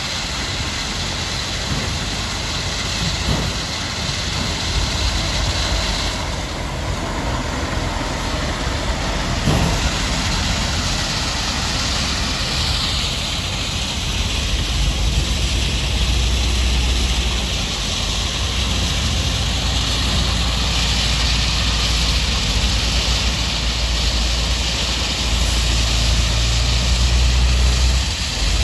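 Heavy diesel machinery running steadily with a deep rumble, a few knocks in the first ten seconds, and a heavier low hum in the second half.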